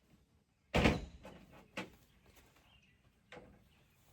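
A sharp loud bang about a second in, followed by two fainter knocks.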